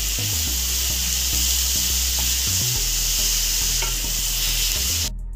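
Chopped onions and tomatoes sizzling in hot oil in a pan while a wooden spatula stirs them. The sizzle cuts off suddenly near the end.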